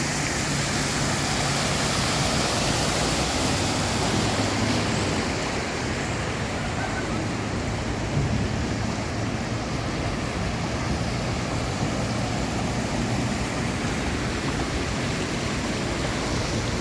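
Heavy rain with running water: a steady, even rushing hiss. A faint low hum lies underneath during the first half.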